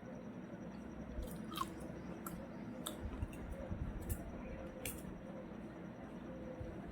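A person chewing food close to the microphone, with irregular sharp mouth clicks through the chewing.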